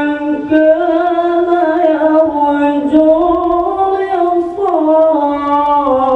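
Male qari chanting the Qur'an in melodic tilawah style into a microphone. He holds one long, unbroken, high-pitched melismatic phrase, with the pitch stepping up and down through ornaments and sliding lower a little past halfway.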